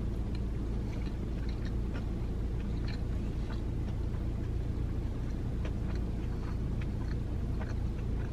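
Steady low hum inside a parked car's cabin, with faint, scattered crunching and smacking of someone chewing a fried chicken tender sandwich with pickles.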